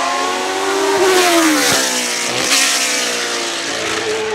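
Leyton House March Formula 1 car's Judd EV 3.5-litre V8 at racing revs as it accelerates past. Its pitch falls as it goes by, with two short breaks in the note about halfway through, then it runs steadily as it moves away.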